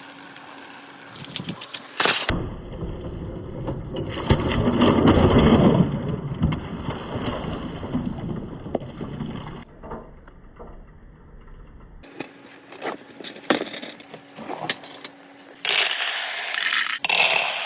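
Many glass marbles rolling and clattering along a marble run. A dense rolling rumble swells in the first half, and scattered sharp clicks of marbles knocking together follow in the second half, growing louder near the end.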